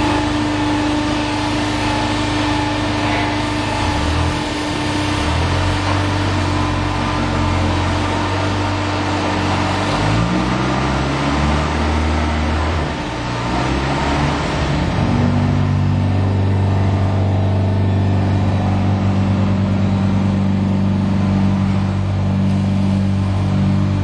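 Concrete pipe making machine running: a steady motor hum with a gritty rattling noise over it. The hum's pitch steps up and down a few times, then after about fifteen seconds it settles into a smoother, steadier drone as the rattle dies down.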